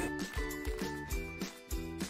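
Background music with a steady beat and short, high, bell-like notes.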